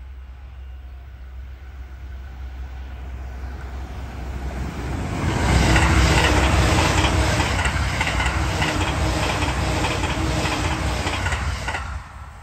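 JR East E657 series limited express electric train approaching and passing close by at speed: a rush of wheel and rail noise that builds, is loud for about six seconds with a rhythmic clack of wheels over the rail joints, then drops off sharply as the last car clears, near the end.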